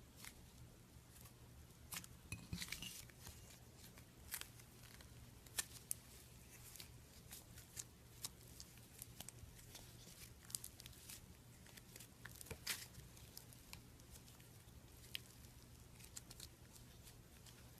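Faint, irregular crisp crackles and clicks of something being crushed, cut or handled close to the microphone, over a low steady hum.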